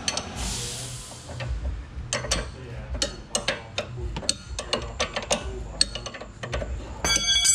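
Hand ratchet clicking in short, uneven strokes on the lower front strut bolt through the bush, as it is undone. A brief hiss just after the start, and a ringing metallic clatter of tools near the end.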